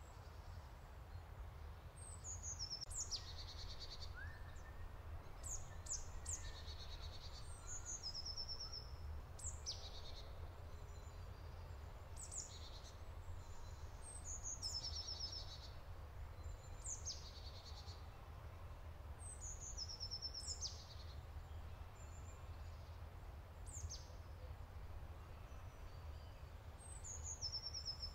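Songbirds singing short, high phrases of quick falling notes and trills, repeated every two or three seconds, over a steady low rumble.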